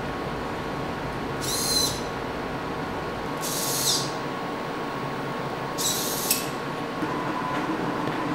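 Robot arm's servo motors whining in three short high-pitched bursts of about half a second each as the joints move, over a steady background hum.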